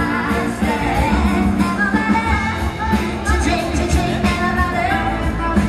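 Live band playing a song with a lead singer over a strong, pulsing bass beat, loud and steady.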